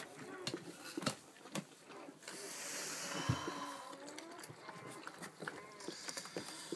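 Newborn Labrador puppy squeaking in short cries that rise and fall, with a few soft knocks and a stretch of rustling hiss from about two to four seconds in.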